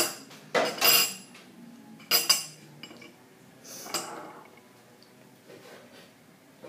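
A metal spoon and ceramic bowl clinking: three sharp, ringing clinks within the first couple of seconds. A short breathy sound follows about four seconds in.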